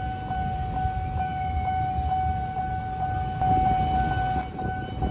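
Railway level-crossing warning alarm sounding a steady high electronic tone with a faint pulse about three times a second, warning that a train is coming. Motorcycles and cars idle underneath at the closed crossing.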